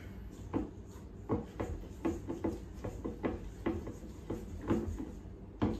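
A spatula scraping and folding stiff cookie dough in a stainless steel mixing bowl: a run of short, uneven strokes about two or three a second, as flour is worked into the creamed butter by hand, with one harder scrape near the end.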